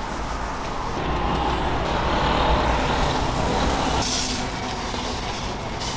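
Steady street traffic noise, swelling as a vehicle passes between about one and four seconds in.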